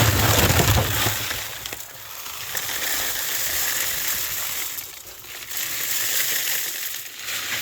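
Water running and splashing, swelling in two spells of about two seconds each.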